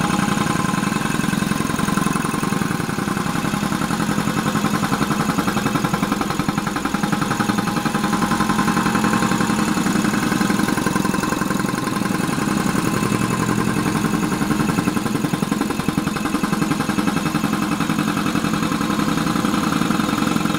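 Quincy dual-head air compressor with both pumps running together, a steady, fast, even chugging from the two piston pumps as they build tank pressure.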